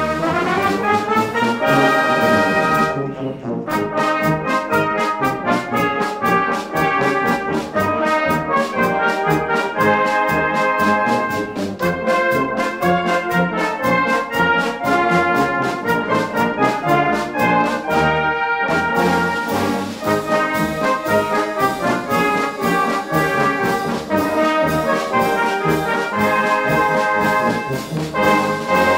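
Full brass band playing a march: cornets, horns, trombones and tubas in sustained chords over a steady drum beat. The drums briefly drop out about three seconds in and again near eighteen seconds.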